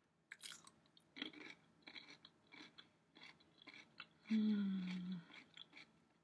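A person bites into a homemade refrigerator pickle and chews it with repeated crunches. About four seconds in there is a hummed "mmm" of enjoyment, falling slightly in pitch, which is the loudest sound.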